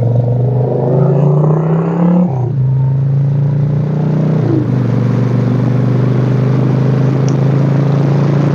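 Motorcycle engine pulling under acceleration, its note rising and then dropping sharply at upshifts about two seconds in and again about four and a half seconds in, then running steadily at cruising speed, with wind noise on the microphone.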